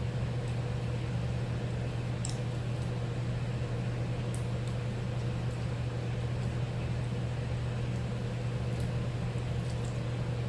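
Steady low machine hum with a fainter steady tone above it, and a few faint scattered clicks.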